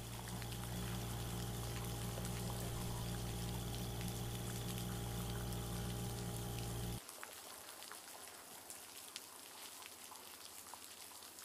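A lawn mower engine running steadily over the hiss of rain, stopping abruptly about seven seconds in; after that, only rain pattering and dripping.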